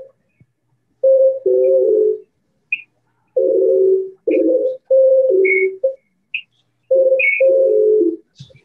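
Singing in short held notes that step down between two or three pitches, in phrases broken by brief gaps. The sound is thin and chopped, as through video-call audio.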